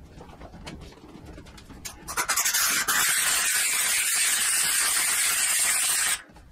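McCulloch Deluxe steam cleaner jetting steam: a loud, steady hiss that starts about two seconds in and cuts off suddenly near the end. Before it, only faint handling noises.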